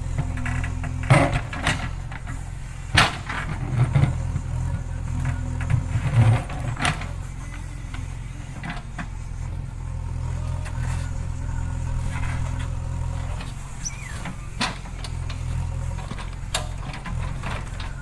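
JCB 3DX backhoe loader's diesel engine running steadily under work, with a few sharp knocks and clanks from the machine.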